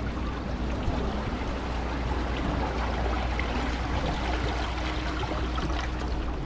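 Bay water washing and lapping against shoreline rocks, with a steady low rumble underneath.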